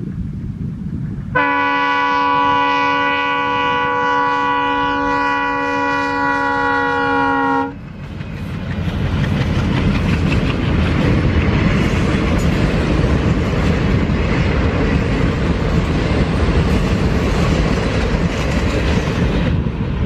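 Indian Railways diesel locomotive sounding one long multi-note horn blast of about six seconds, its pitch dropping slightly toward the end as it nears. Then the locomotive and its passenger coaches rumble past on the track, the wheels running loudly over the rails.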